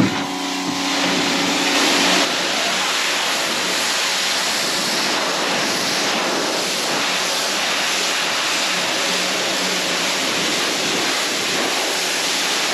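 Pressure washer jet hissing steadily as it sprays water across a plastic kayak hull, with a low steady hum under it.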